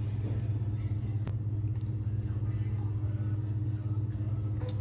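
A steady low mechanical hum with fainter steady tones above it, and a single sharp click about a second in.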